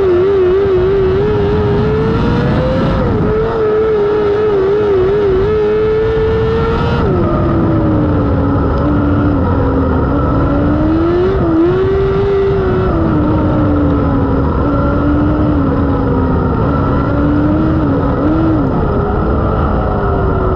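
Non-wing micro sprint car's 600cc motorcycle engine running at high revs, its pitch wavering quickly up and down with the throttle. About seven seconds in the pitch drops and the engine carries on at lower revs, rising and falling gently.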